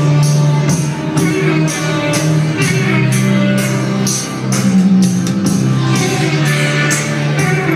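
Live band music: sustained low notes that shift pitch a few times, over a steady percussion beat of about two hits a second.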